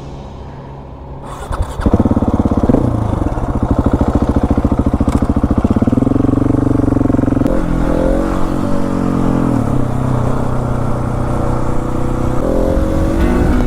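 Husqvarna 701 Supermoto's single-cylinder engine, quiet at first, then pulling away about two seconds in and revving up through the gears, its pitch rising and dropping with each shift.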